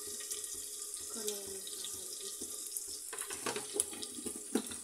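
Onions and green chillies sizzling steadily in hot oil in an aluminium pressure cooker. A few light knocks come near the end.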